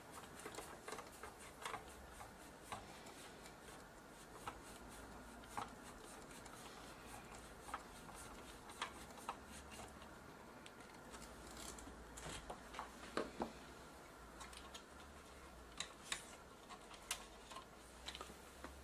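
Faint, scattered clicks and ticks of a screwdriver and small metal and plastic camcorder parts being handled during reassembly, at irregular intervals, with a close pair of louder clicks about two-thirds of the way through.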